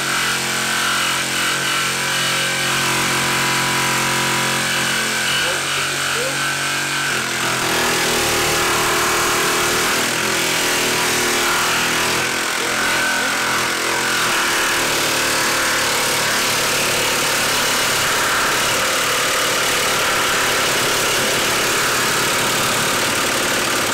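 Ryobi brushless cordless jigsaw cutting through a 2x4 with the orbital action on, the blade running steadily under load. About seven seconds in, the sound turns noisier.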